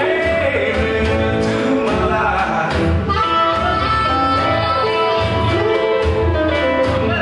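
Blues music playing, with a steady pulsing bass line and one note held for about a second and a half in the middle.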